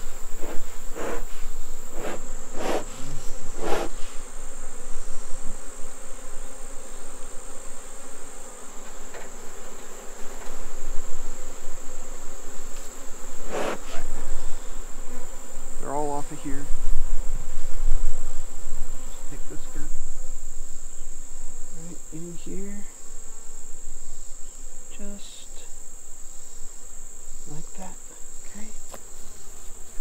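Honeybees buzzing around an open hive as frames are worked, over a steady high-pitched insect trill. A few short swishing strokes in the first few seconds, and a low rumble around the middle.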